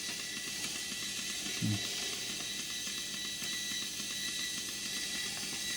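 Steady hiss of static from the Salyut-001's FM section while it is being tuned, with a faint fast ticking running through it. A short low sound comes about a second and a half in.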